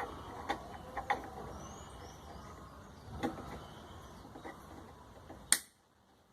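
Scattered small clicks and knocks of parts being handled and fitted on a washing machine's brake and transmission assembly, with one sharp, louder click about five and a half seconds in, after which the sound drops off suddenly.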